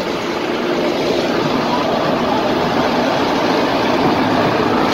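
A vehicle engine running steadily close by, a loud even drone.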